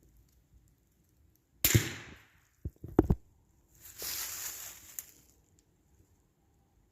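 A single shot from a Ruger American .22 LR bolt-action rifle: one sharp crack with a short fading tail. About a second later come a few quick clicks and knocks, then about a second of hissy rustling that ends in a click.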